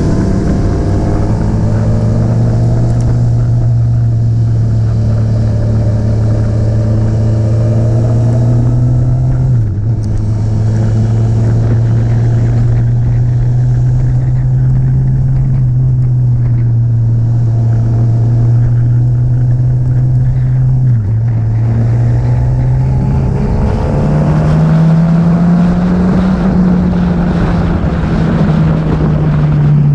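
Motorcycle engine running steadily at road speed, with wind rush. The note dips briefly twice, about ten and twenty-one seconds in, and rises in pitch as the bike speeds up near the end.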